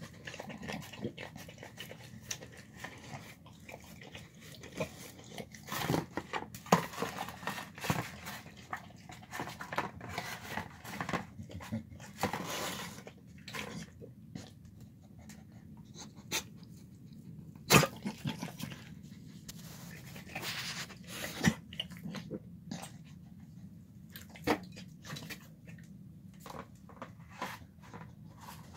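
A dog eating soft home-cooked food out of a plastic tub: irregular wet chewing and crunching with clicks and scrapes of its muzzle and teeth against the plastic, and one sharp knock a little past halfway, the loudest sound.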